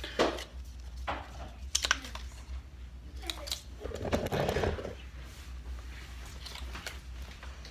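Scattered clicks, taps and rustling from things being handled, loudest as a short rustle about four seconds in, over a low steady hum.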